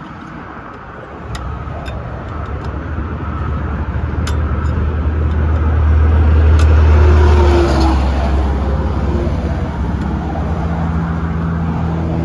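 A vehicle pulling away and picking up speed: a low engine and road rumble sets in about a second in, grows louder to a peak around seven seconds, then eases to a steady cruise.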